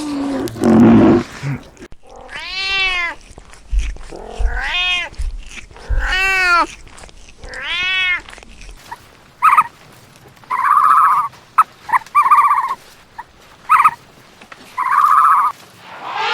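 A series of animal calls: four separate cries, each rising and then falling in pitch, about two seconds apart, followed by a run of shorter, higher calls in uneven groups.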